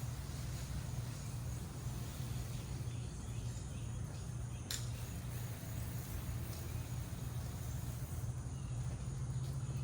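Steady low mechanical hum, with faint bird or insect chirps over it and one short sharp chirp about halfway through.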